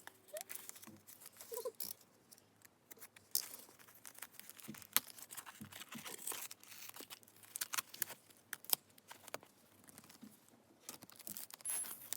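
Packaging being handled and torn open: irregular crinkling, rustling and small sharp clicks.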